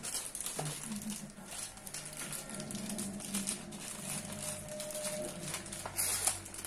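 Thin plastic wrapping crinkling and rustling as parts are handled in a cardboard box, with a louder crinkle about six seconds in.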